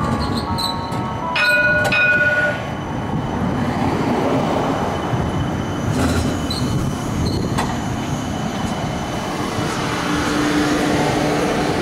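CAF Urbos 3 electric streetcar rolling past close by on its rails, with brief high tones in the first couple of seconds, then steady rolling noise that builds as it draws alongside, and a low hum near the end.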